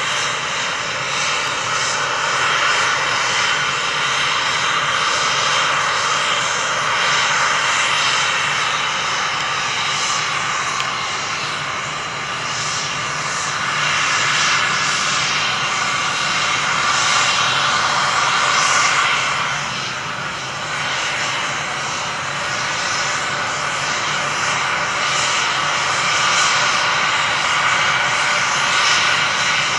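Boeing C-17 Globemaster III's four Pratt & Whitney F117 turbofan engines running steadily on the ground: a continuous jet whine over a rushing hiss that swells and eases a little.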